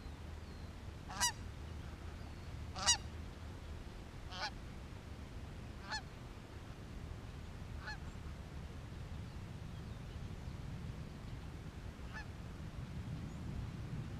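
Goose honks, single calls one to two seconds apart, loudest about one and three seconds in, then fainter and sparser, over a low steady wind rumble.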